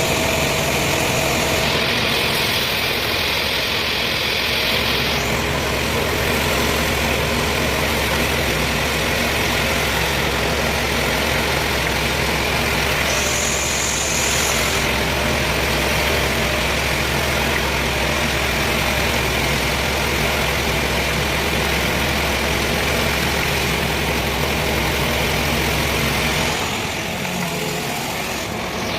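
Sawmill machinery running steadily with a strong low engine hum and a broad mechanical hiss. The low hum drops away near the end.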